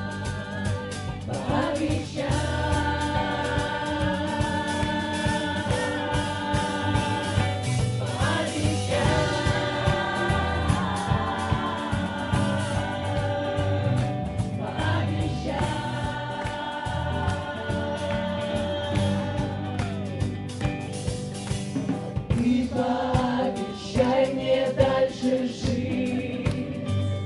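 A group of singers singing together in chorus, with long held notes.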